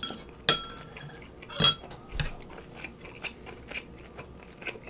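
Utensils clink twice against a ceramic bowl, each with a short ring, then a duller knock, followed by soft, quick chewing of a mouthful of beef.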